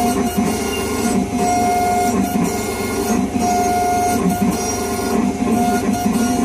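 Dental milling machine running, its burs cutting a crown from a block under a spray of coolant water: a steady grinding whir with a whining tone that comes and goes every second or two.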